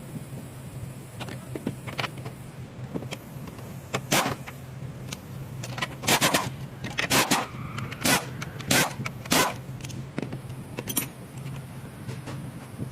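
Metal clinking and scraping, like hand tools knocked against metal parts during an engine-mount replacement: a handful of sharp clinks, most of them in a burst around the middle, over a steady low hum.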